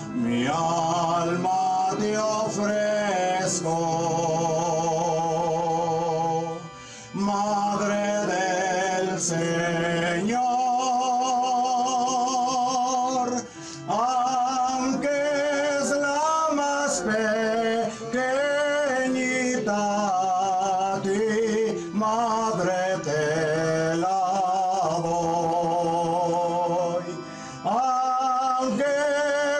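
A slow Spanish hymn to the Virgin Mary, sung by a solo voice with heavy vibrato over steady instrumental accompaniment, with brief pauses between phrases.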